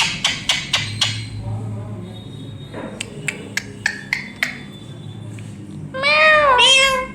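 A run of sharp taps, about four or five a second, in the first second, a few scattered taps a couple of seconds later, then near the end two meow-like calls that rise and fall in pitch, typical of a pet parrot mimicking a cat.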